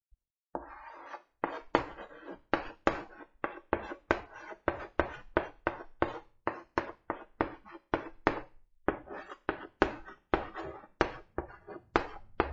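Chalk writing on a blackboard: a short scratchy stroke near the start, then an uneven run of sharp taps and short scrapes, about two or three a second, as the letters are drawn.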